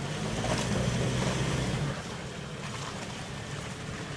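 Land Rover Defender's engine running hard under load as it pulls up a muddy slope, louder for about the first two seconds and then easing off.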